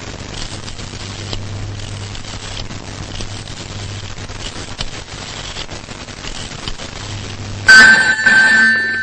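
Steady hiss with a low hum from the film soundtrack. Near the end, a telephone starts ringing loudly with a high, steady ring that fades out.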